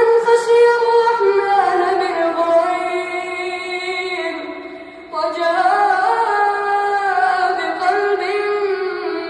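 A boy's voice reciting the Quran in a drawn-out melodic style, with long held notes that glide between pitches. There are two long phrases: the first fades out about five seconds in, and the second begins right after.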